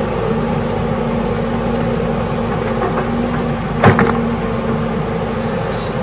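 Crawler excavator's diesel engine running steadily under load as the bucket works the soil, with one sharp clank about four seconds in.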